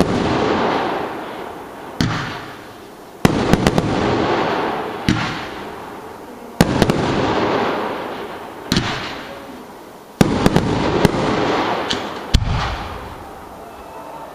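Aerial fireworks going off: a string of sharp bangs every second or two, some coming in quick clusters of several pops, each followed by a hiss that fades away as the sparks fall.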